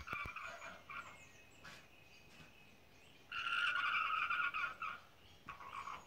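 Alpacas calling: a few short calls, then one long, loud call lasting about a second and a half just past the middle, with sharp clicks right at the start.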